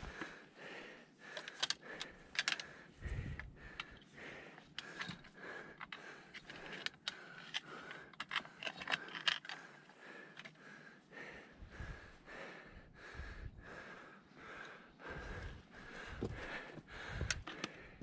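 Light clicks, taps and scrapes of a long-handled dip net's pole and rim knocking against rock as it is worked down into a crevice, with a few low rumbles in between.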